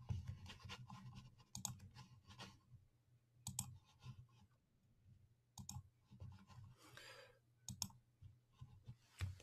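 Faint computer mouse clicks, several in quick pairs, over a steady low electrical hum.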